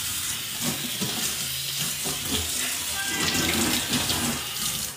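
Water running steadily from a kitchen tap into a sink, a continuous hiss.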